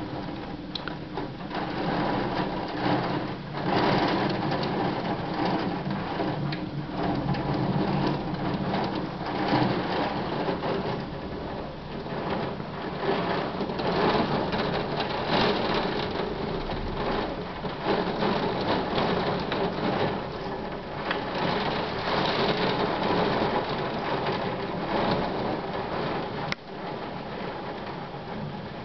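Heavy thunderstorm rain, a dense patter of drops that swells and eases every few seconds.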